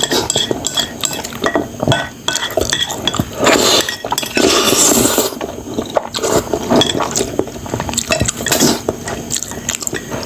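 Close-miked eating of noodles in a thick spicy sauce: wet chewing and slurping, with cutlery clinking against the bowl. A longer, louder slurp comes near the middle.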